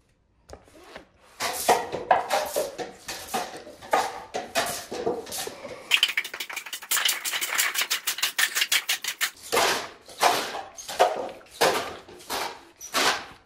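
A plastic toy gun being fired at a stack of paper cups: a string of short noisy shots about two a second, with a faster rattling run of clicks, some seven a second, in the middle as the cups are knocked over and clatter down.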